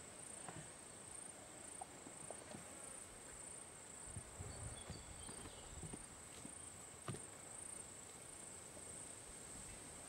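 Faint, high insect trill pulsing in a regular rhythm, with a few faint scattered knocks, the sharpest about seven seconds in.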